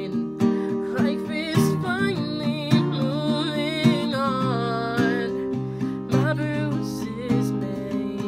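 Acoustic guitar strummed in steady chords, with a woman singing a slow melody over it.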